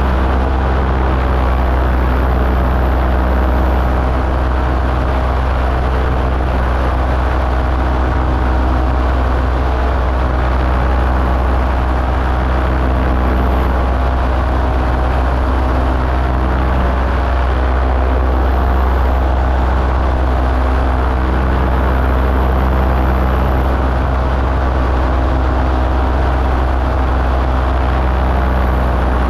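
A light aircraft's engine running steadily in flight, heard from on board: a constant low hum with even overtones that holds the same pitch throughout.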